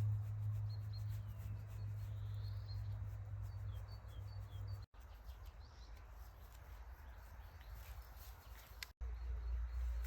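Outdoor forest ambience: a small bird gives a run of short, high chirps in the first few seconds over a low steady rumble. The sound cuts off abruptly twice, about halfway and near the end.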